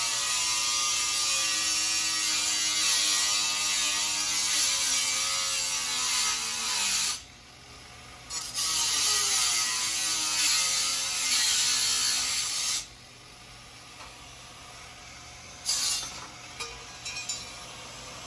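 Corded angle grinder cutting through a metal TV wall-mount plate: two long cuts of about seven and four seconds, with a short pause between, the motor's pitch falling as the disc bites into the metal. Near the end come two brief grinder bursts.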